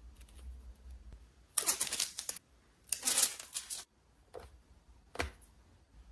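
Handling noise: two bursts of rapid clicking and rustling, then a single sharp click near the end.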